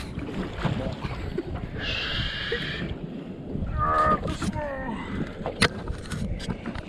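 Wind and water noise on a small boat, with a drawn-out voice-like call about four seconds in and a few sharp knocks near the end.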